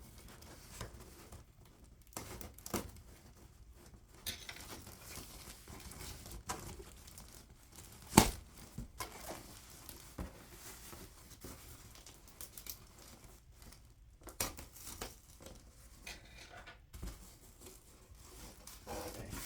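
Heavily taped shipping package being torn open by hand, packing tape ripping and plastic bags crinkling in irregular rustles and rips. A single sharp snap about eight seconds in is the loudest sound.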